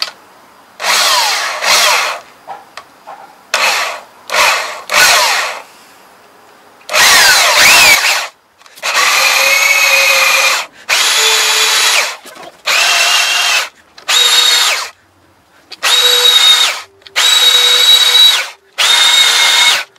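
Power drill boring a 22 mm auger bit lengthwise into a rimu wood stock blank, run in about ten short bursts of one to two seconds with pauses between. The motor winds up at the start of the early bursts and holds a steady whine in the later ones.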